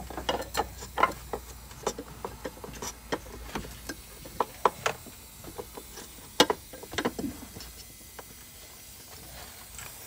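Irregular plastic clicks and scrapes as an oil filter cartridge in its screw-on cap is pushed into the filter housing and threaded in by hand. The clicks come thickest in the first seven seconds, the sharpest about six and a half seconds in, then thin out.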